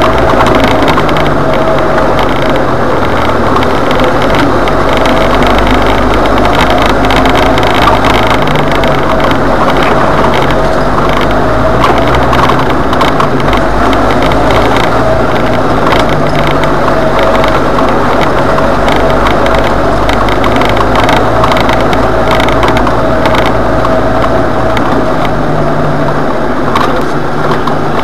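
Jeep Wrangler engine running under load up a steep dirt hill climb, heard loud from inside the cab, its pitch shifting in steps, with frequent knocks and rattles from the rough, rocky track.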